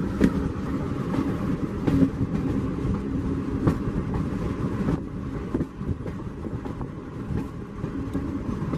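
Passenger train running along the track, heard from the side of a moving carriage: a steady rumble of wheels on rails with a few sharp clicks over rail joints, easing slightly after about five seconds.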